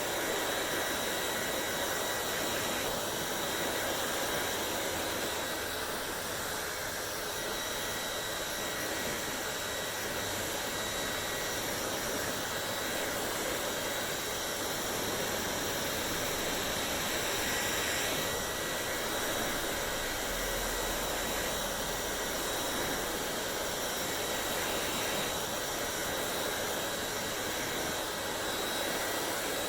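Hair dryer running steadily: an even rush of blown air with a faint high motor whine.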